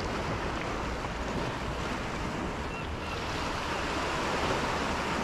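Steady rush of sea water around a kayak on calm water, with light wind on the microphone.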